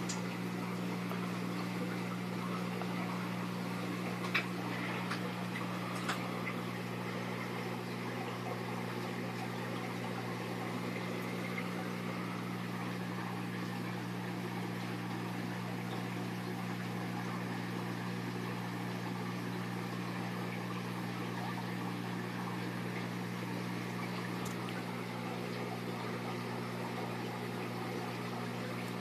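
Aquarium air stone bubbling steadily over the low, steady hum of the tank's pump. A few faint clicks come about four to six seconds in.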